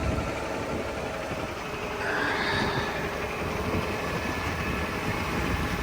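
Semi truck under way on the highway, its engine and road noise running steadily; a faint high whine joins about two seconds in.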